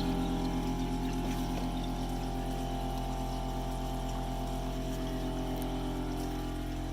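Air compressor running with a steady low hum, feeding air into the duck pond's gravel media filter, with water moving underneath.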